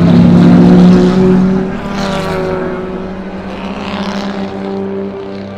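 Historic sports racing cars passing on a circuit. The engine note is loudest about a second in and then fades, and further cars rush past about two and four seconds in.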